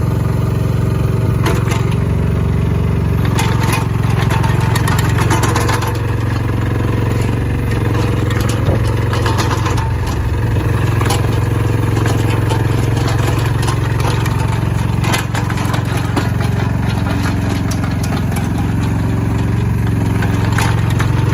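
Mitsubishi ME08B mini excavator's diesel engine running steadily, with short clicks and knocks scattered throughout as the machine is put through its movements during an operation check.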